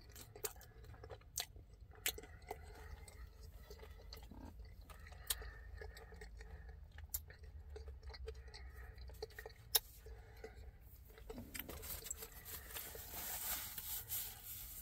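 A person chewing a mouthful of loaded fries with steak, cheese and sauce, with scattered small clicks of the mouth and plastic fork, over a faint low hum. Near the end a louder rustling hiss builds up.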